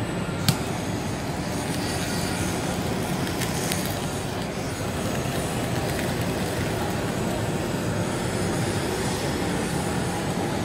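Handheld butane kitchen blowtorch clicking alight about half a second in, then its flame hissing steadily as it is played over a bowl of beef, over a steady background hum.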